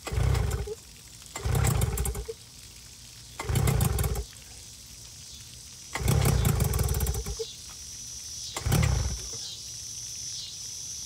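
Hangkai 12 hp two-stroke outboard being pull-started by its recoil rope: five hard pulls about two seconds apart, each turning the engine over briefly without it catching. A steady hiss of running water lies underneath.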